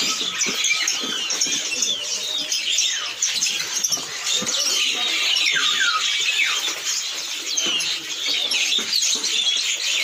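Many caged songbirds chirping and twittering at once, a dense chorus of high chirps and downward-sliding whistles that never lets up, with some rustling and knocks from cardboard boxes and paper bags being handled.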